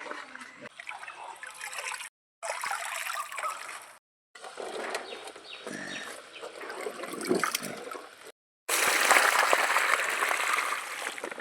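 Water trickling and splashing in a small pond, in several short clips cut apart by brief silences; a louder, steady rush of water fills the last few seconds.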